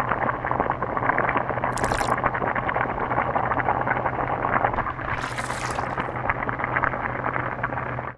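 Water boiling hard in a pot: a dense, crackling bubbling over a low steady hum, cut off abruptly at the end. Two brief hissing bursts come about two seconds and five and a half seconds in.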